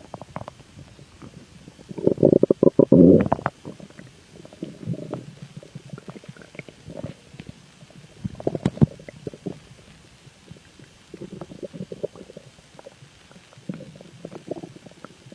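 Stomach growling: bouts of gurgles and rumbles coming and going. The loudest bout is about two seconds in and lasts a second and a half, with smaller gurgles after it.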